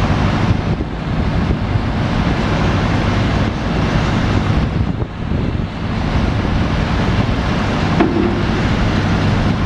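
Boat engine running steadily with a low drone, mixed with wind buffeting the microphone.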